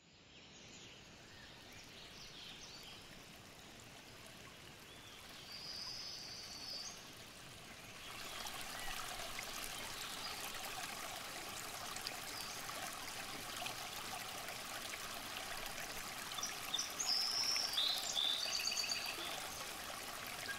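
Flowing water of a brook, a steady rush that grows louder about eight seconds in, with a few brief high bird chirps about six seconds in and a cluster of them near the end.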